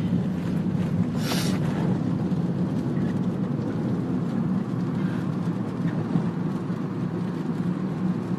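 Steady low rumble of a moving vehicle, with a brief hiss about a second in.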